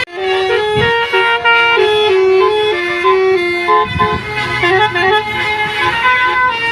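Indonesian tour bus 'telolet' musical horn playing a quick tune of stepped, reedy notes.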